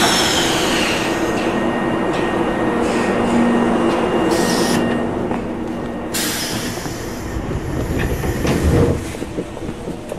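Running sound inside an Odakyu 9000 series electric train: rumble of the wheels and running gear with a faint steady motor whine and brief wheel squeal, with a heavier low rumble near the end.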